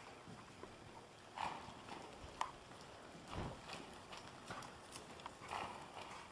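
Hoofbeats of a ridden grey quarter-type gelding on soft arena dirt, a string of uneven hoof strikes as the horse moves around the pen.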